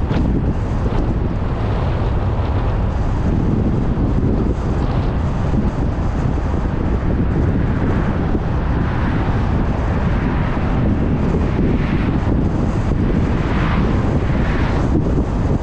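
Steady road noise of a car driving at speed, with wind rushing over the microphone. The wind swells briefly several times in the second half.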